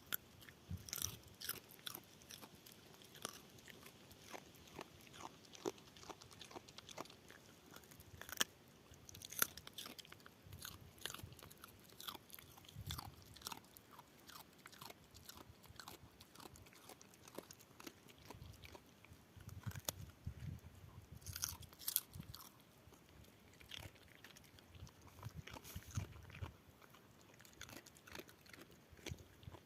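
A dog chewing, with irregular crunching clicks throughout.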